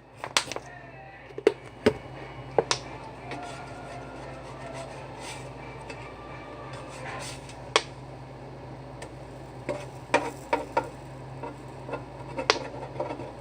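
Scattered light clicks and knocks of kitchen utensils and dishes, a cluster of them about ten seconds in, over a steady low hum.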